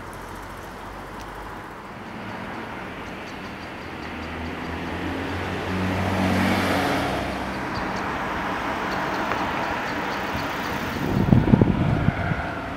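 Aston Martin Rapide's V12 engine idling with a steady low hum. Louder, uneven low rumbling comes in near the end.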